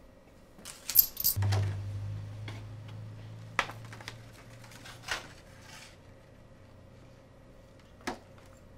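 Sharp clicks of a clear plastic clamshell pastry container being handled on a counter, a loud pair about a second in and a few single snaps after. A low steady hum starts about a second and a half in and slowly fades.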